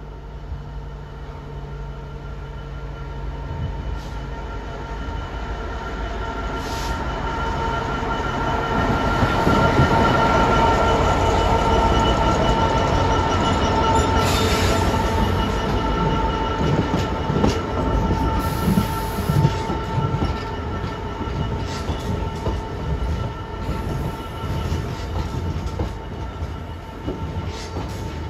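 Class 66 diesel-electric locomotive, its two-stroke engine running, approaches and passes close by hauling a train of biomass hopper wagons. The sound builds to its loudest about ten seconds in as the locomotive goes by, then the wagons roll past with irregular knocks from the wheels, and a steady high tone runs through it all.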